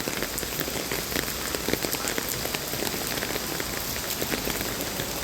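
Heavy rain pouring down: a steady hiss of rain, with many sharp ticks of individual drops striking nearby surfaces.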